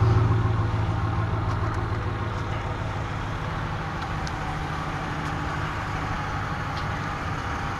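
A 2016 Ram 1500's stock 5.7-litre Hemi V8 idling through its dual exhaust with a steady deep growl. It fades a little over the first few seconds as the microphone moves away from the tailpipes, then holds steady.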